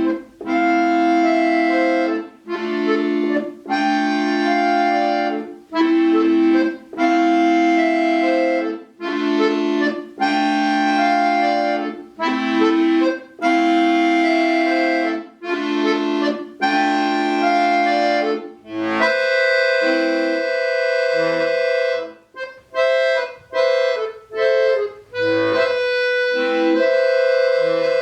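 Solo accordion playing a run of full, held chords, a new one about every second and a half. About two-thirds of the way through it changes to shorter, detached notes and chords.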